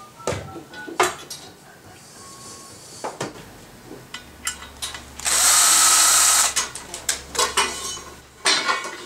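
Drill driver runs in one steady burst of just over a second, about five seconds in, driving a screw that fixes a heater-stand leg to its support pole. Sharp clicks and knocks of metal parts being handled come before and after it.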